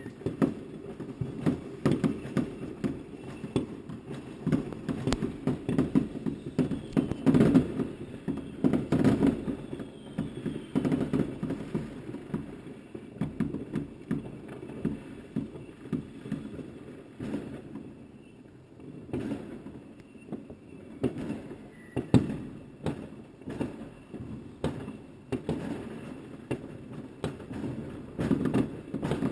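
Many fireworks going off at once: an irregular, continuous jumble of bangs and crackle, with sharper single reports standing out. It eases off briefly a little past halfway, and one especially sharp bang comes about three-quarters through.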